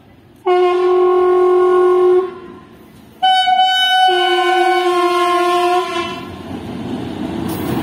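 Indian Railways WAG-9 electric locomotive sounding its horn in two long blasts, the first about a second and a half, the second nearly three seconds with its low note joining a moment late. After the second blast the rumble of the loaded freight train grows as it runs up to the crossing.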